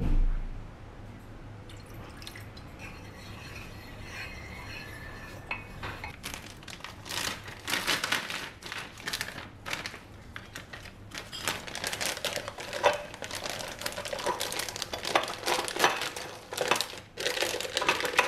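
Kitchen prep sounds: a soft trickle of liquid being poured into a dish, then from about six seconds in a long run of plastic crinkling and small clicks and scrapes of a spatula against a bowl as a piping bag is filled with mascarpone cream. A dull bump sounds right at the start.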